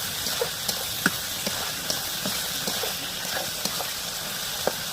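Cooking sounds: a steady sizzling hiss with irregular sharp crackles and pops, the loudest about a second in and again near the end.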